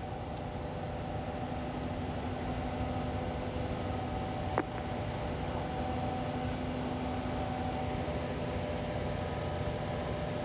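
Steady rushing noise carrying a faint hum of a few steady tones, with a single click about four and a half seconds in: the open-line background of a live launch broadcast feed.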